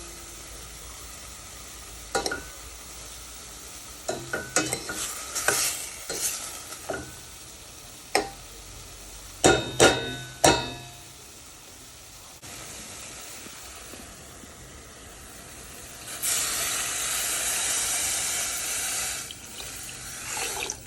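Chicken pieces frying in oil in a pan with a low steady sizzle, while a utensil knocks and scrapes against the pan in a cluster of sharp clacks during stirring. About sixteen seconds in, a louder burst of sizzling hiss lasts about three seconds, then drops away.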